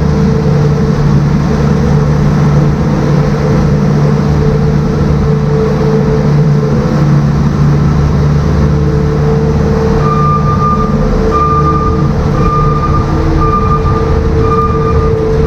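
Farm machine's engine running steadily while scraping out a feed bunk. About two-thirds of the way through, a reverse-warning beeper starts, sounding about once a second.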